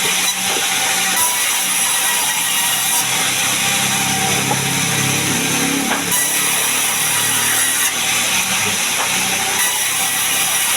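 A sawmill saw cutting gmelina wood into boards, a steady, unbroken cutting noise. Background music with plucked-guitar tones is mixed in through the middle.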